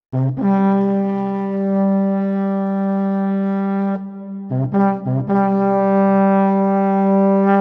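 Intro music: a brass horn sounds one long held note, then three short notes and a second long held note, all on the same pitch.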